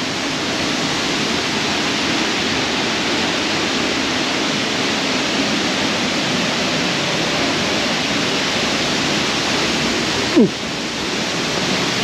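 Steady rush of a waterfall about 25 m (82 ft) high plunging into its pool, growing slightly louder. About ten seconds in, a brief sound falls quickly in pitch.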